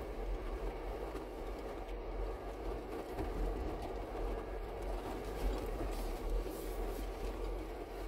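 Four-wheel-drive vehicle driving slowly over a rocky gravel track: a steady low rumble of engine and tyres on stones, with a few faint clicks and rattles.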